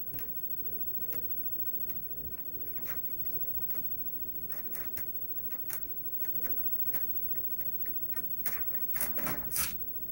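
Irregular light clicks, taps and rubbing against a printer, with a quicker run of louder clicks near the end.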